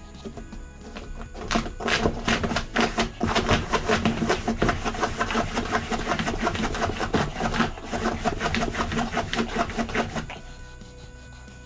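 A pregnant Shih Tzu scratching and digging with her paws at a towel and cardboard floor, a fast, continuous run of scratching strokes that starts about a second and a half in and stops shortly before the end: nesting, a sign that she is close to giving birth. Soft background music plays underneath.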